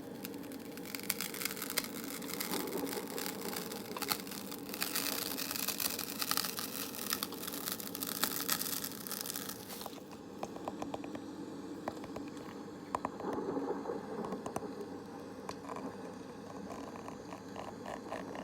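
Close-up ASMR crinkling and scratching, dense and crackly, giving way about ten seconds in to sparser light taps and clicks over a steady low background hum.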